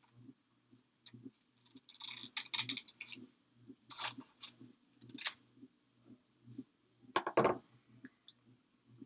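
Small scissors snipping words out of a sticker sheet in short, irregular cuts, with a louder clack near the end as they are set down on the table.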